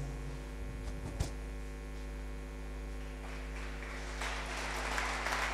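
Steady mains hum in the microphone and sound system: a low electrical buzz with many evenly spaced overtones. There is a faint click about a second in, and soft room noise rises in the last two seconds.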